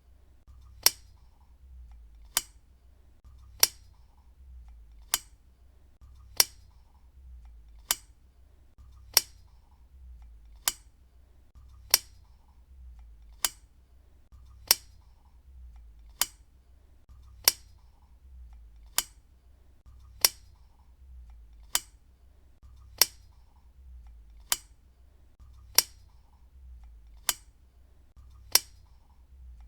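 Desk lamp switch clicked on and off over and over, one short sharp click about every 1.3 seconds, over a faint low hum.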